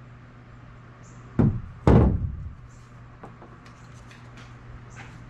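Two knocks about half a second apart as a removed car shock absorber is handled, the second the louder with a short trailing ring, followed by a few faint clicks.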